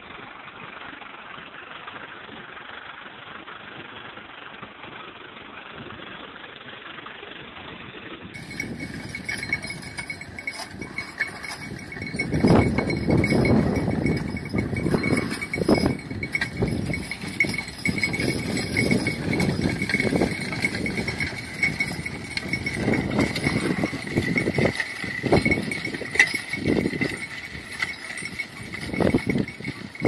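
A small walk-behind tractor engine runs steadily while plowing, sounding muffled. After about 8 s it gives way to a two-horse team pulling a riding plow: irregular hoof steps and clinking, jingling harness and plow metal over a steady high ring, louder from about 12 s.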